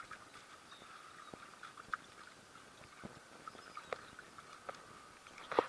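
Scattered small knocks and clicks, the sharpest near the end, over a faint steady background hiss.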